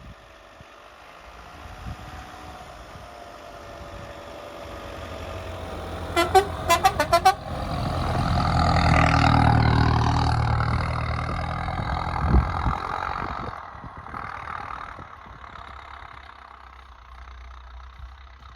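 A vehicle drives closer and past, its engine growing louder to a peak and then fading away. Around six seconds in, its horn gives about six short toots in quick succession, and a single knock is heard a few seconds later.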